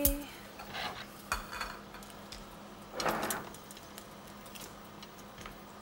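Scattered metallic clinks and knocks of a meat fork against an oven's wire rack and metal tray as a roast chicken is lifted out, with one short scraping rush about three seconds in.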